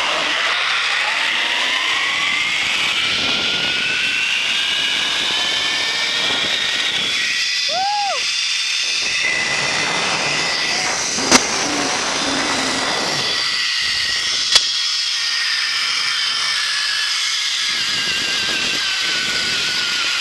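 Zip-line trolley pulleys running along the steel cable: a steady whirring whine over rushing noise. The whine climbs in pitch in the first few seconds as the rider picks up speed and sinks slowly in the second half as the ride slows. Two sharp clicks come in the middle.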